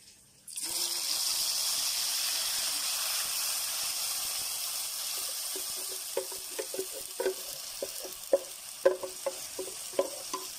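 Blended spice paste of shallots, garlic, dried chilli, galangal and ginger frying in hot oil in a wok: a sizzle that starts suddenly about half a second in and slowly eases. From about halfway, a spatula knocks and scrapes against the pan as the paste is stirred.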